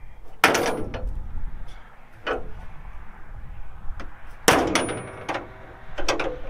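Metallic clanks: two loud metal-on-metal clangs about four seconds apart, each with a brief high ring. A lighter knock falls between them and a quick run of knocks comes near the end.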